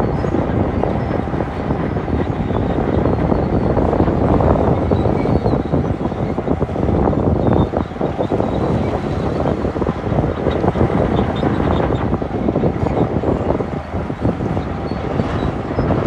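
Shantui DH17-C2 bulldozer's diesel engine running steadily under load as the dozer pushes broken rock, with the loud low mechanical noise of the machine working.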